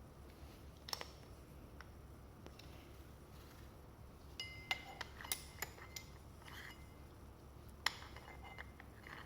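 Hard metal parts of a crimping tool being handled: scattered clinks and taps, a click about a second in, a cluster of short ringing clinks in the middle and a sharp knock near the end.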